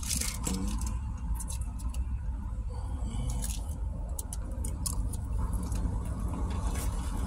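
Paper food wrapper crinkling and rustling in short irregular crackles, over the steady low hum of a car engine idling.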